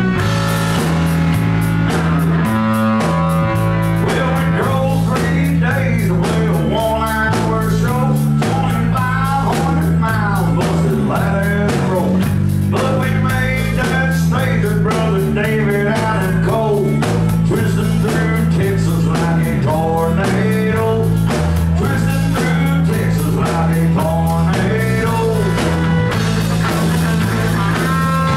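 Outlaw country rock band playing live: guitars over drum kit and bass, with a steady beat and a moving bass line.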